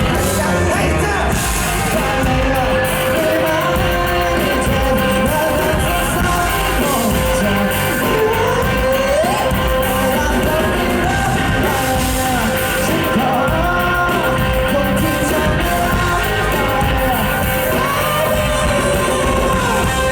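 Live pop-rock band performance with a singer's vocals over the band, loud and continuous, with the echo of a large hall.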